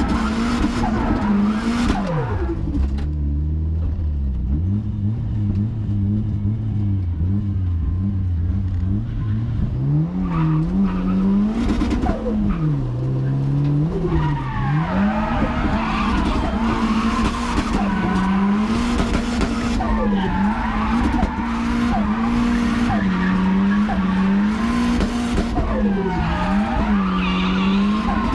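Drift car's engine heard from inside the caged cabin, revs rising and falling over and over as the throttle is worked through drifts, with tyres squealing. About three seconds in the revs drop low and hold for several seconds before climbing again.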